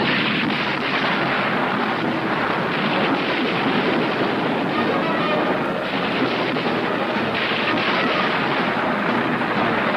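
Cartoon storm sound effect: heavy rain with thunder rumbling, one dense, steady noise with no clear breaks.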